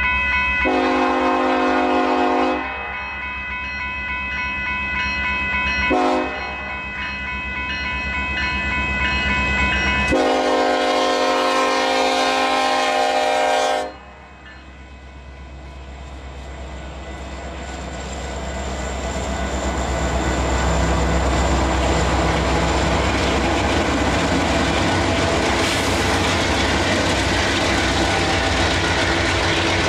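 Union Pacific diesel freight locomotive's horn sounding for a grade crossing in three blasts, long, short and long, over a crossing bell ringing steadily. After the last blast the locomotives and cars pass close by, their engine and wheel noise swelling and then holding steady.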